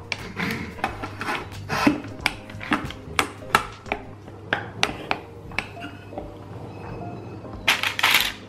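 Wooden tongs clicking and tapping against a stainless steel bowl and roasting pan as raw chicken pieces are moved, in irregular knocks. A short, louder rustle of parchment paper comes near the end.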